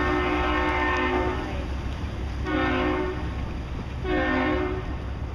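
Boat's horn sounding a chord of several notes at once: one long blast that stops about a second and a half in, then two short blasts about a second and a half apart, a salute during the parade of sail.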